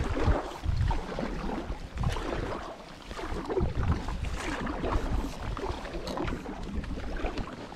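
Kayak paddle strokes: the blades dip and pull through the water again and again, splashing and sloshing roughly once a second.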